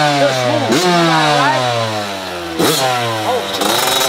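Small two-stroke dirt bike engine being revved in repeated throttle blips. The pitch jumps up sharply with each blip and slides down over about a second as the throttle eases, several times, with a second bike's engine revving more faintly underneath.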